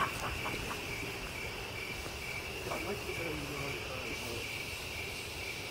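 Crickets chirping in a steady, fast, evenly pulsing high trill.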